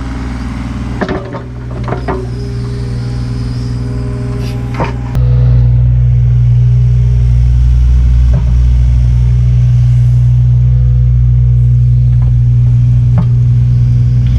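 Kubota U55-4 mini excavator's diesel engine running, stepping up to a louder, steady higher-throttle hum about five seconds in, with a few sharp metallic knocks.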